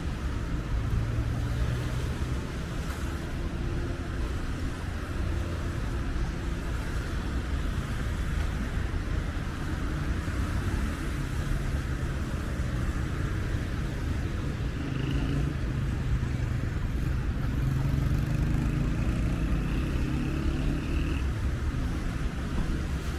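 City street traffic: cars passing on a wet road, with a steady low rumble underneath.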